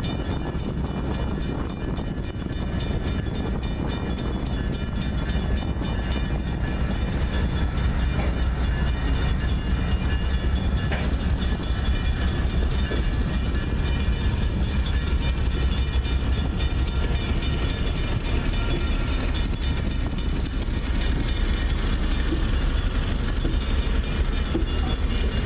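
Multi-truck Schnabel railcar carrying a steam generator rolling slowly past, its steel wheels rumbling on the rails. It gets louder about eight seconds in as the car's heavy trucks reach the crossing.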